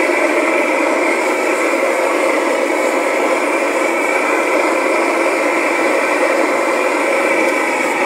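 Metal-melting furnace heating a crucible of molten aluminium: a steady, unbroken rushing noise with a hum.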